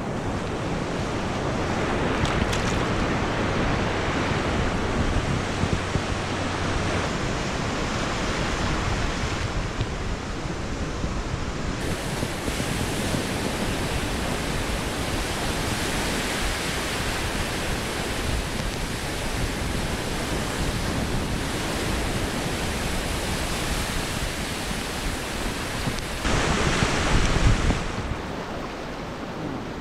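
Pacific surf breaking and washing up a sand beach in a steady rush that swells and ebbs, loudest for a couple of seconds near the end, with wind on the microphone.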